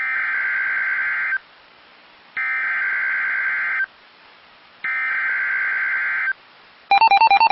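Emergency Alert System SAME header data sent three times over NOAA Weather Radio: a raspy digital data screech in three bursts of about a second and a half, each about a second apart, with hiss between them. Near the end a rapidly pulsing alert tone starts.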